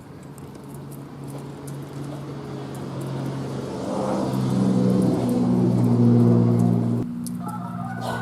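A motor vehicle engine running steadily, growing louder to a peak about six seconds in, then dropping off sharply about seven seconds in.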